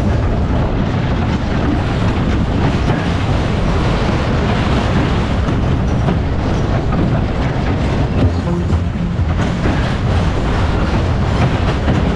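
Superbob fairground ride's bob cars running at speed round their steel track, a loud steady rumble and rattle of wheels on rails.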